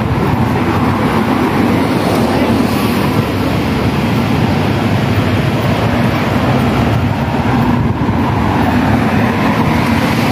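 Steady rumble of city street traffic, a continuous dense noise with no distinct events.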